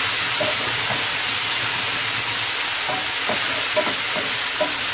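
Chopped tomato, onion and ginger-garlic paste sizzling steadily in a little oil in a nonstick frying pan, with scattered scrapes and taps of the spatula as the mixture is stirred.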